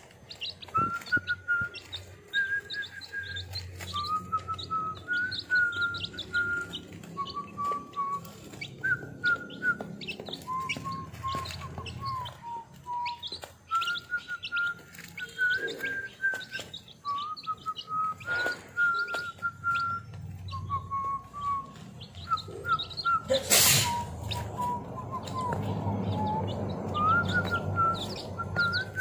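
Week-old chicks peeping quickly and continuously, over a slow tune of held high notes that step up and down. One sharp knock comes late on.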